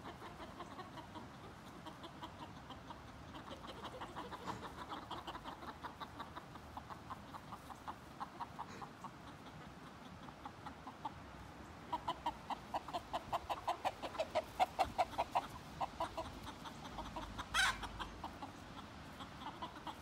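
Chickens clucking in quick runs of short notes, louder and denser a little past the middle, with one brief sharp sound near the end.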